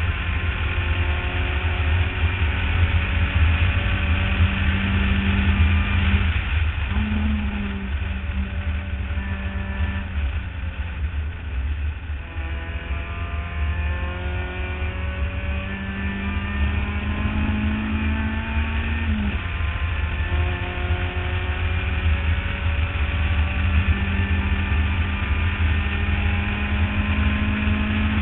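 Mazda Miata race car's four-cylinder engine running hard, its pitch climbing again and again through the revs with drops at the shifts, and a quieter stretch about halfway through as it slows for a corner. A heavy low rumble of wind on the roof-mounted microphone runs underneath.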